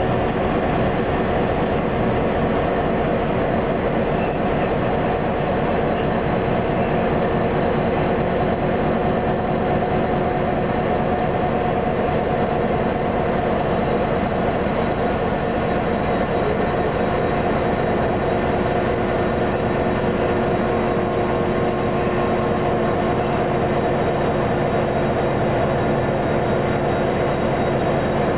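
EMD SD50 diesel-electric locomotive running steadily with the train under way, its 16-cylinder EMD 645 diesel engine giving an even, unchanging drone.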